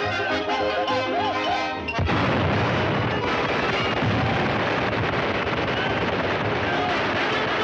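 Orchestral cartoon score for about two seconds, then a sudden crash and a dense din of cartoon gunfire and explosions over the music for the rest.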